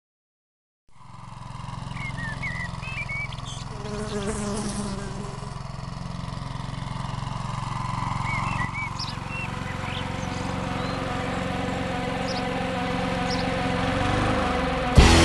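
Buzzing of flies and other insects with short bird chirps over it, fading in after about a second of silence and slowly growing louder. A loud rock band comes in suddenly right at the end.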